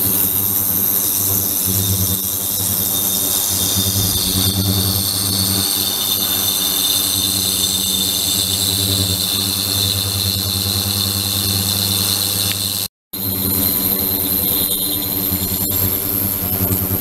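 Ultrasonic tank (72 kHz, 300 W) running: a steady buzzing hum with a high hiss from the bath. It cuts out for a moment about thirteen seconds in.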